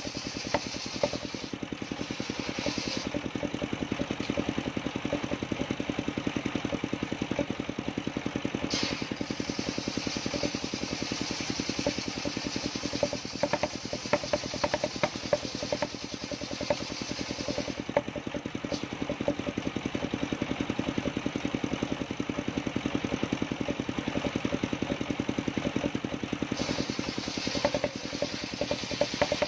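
Engine-driven circular sawmill blade ripping through a coconut trunk, the engine running steadily under load beneath a dense ticking rattle. A high hissing cutting noise fades and returns several times as the feed into the blade varies.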